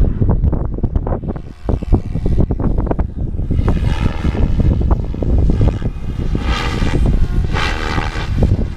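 SAB Goblin 570 electric RC helicopter flying overhead, its motor and rotor whine swelling and fading twice over a rough, gusting low rumble.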